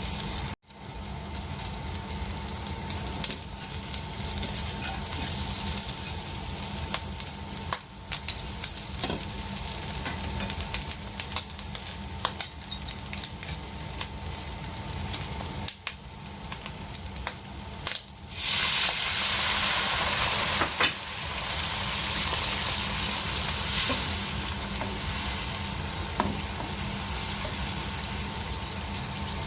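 Duck tongues frying in a hot pan, sizzling steadily, with clicks of a utensil stirring them. The sizzle drops out briefly a few times and is loudest for a couple of seconds about eighteen seconds in.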